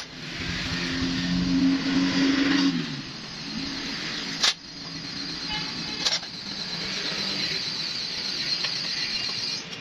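A motor vehicle's engine running close by, its pitched hum holding steady and then dropping away about three seconds in. Later come two sharp knocks about a second and a half apart.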